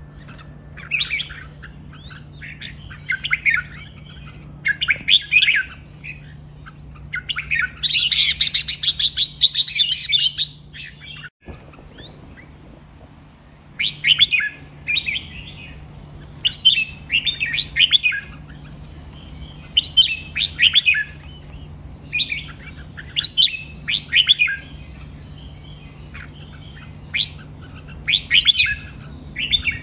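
Red-whiskered bulbul singing short warbled phrases every second or two, with a denser, louder run of song about eight seconds in and a pause of a couple of seconds just before halfway. A steady low hum runs underneath.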